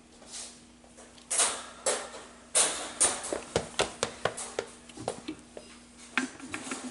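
Toys being handled at a wooden play kitchen: a few rustling scrapes, then a quick run of small clicks, knocks and clatters of toy pieces and a small metal pot, over a low steady hum.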